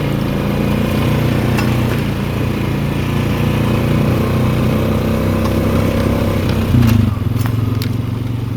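Four-wheeler ATV engine running steadily as it drives. The engine note surges briefly about seven seconds in, then eases off. A few scattered clicks sound over it.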